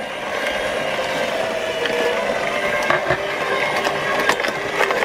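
Tefal Juiceo ZC150 slow juicer with a 150 W motor running quietly, a steady hum with a faint tone. A few short cracks come as the auger crushes pieces of red cabbage.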